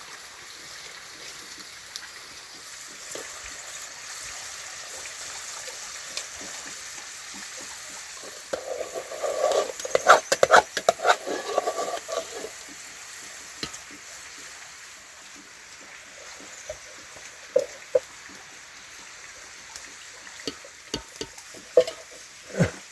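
Steady hiss of heavy monsoon rain. About nine seconds in comes a louder few seconds of clattering knocks, and a few single sharp knocks follow near the end.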